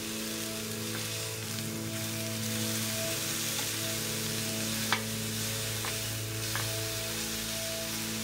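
Chicken breast fillets sizzling in a hot grill pan, with a few sharp clicks of metal tongs against the pan, the loudest about five seconds in.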